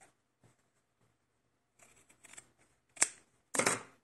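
Scissors snipping through cotton fabric to trim a freshly sewn seam: a few short cuts after a quiet start, with a sharp snip about three seconds in and the loudest cut just after it.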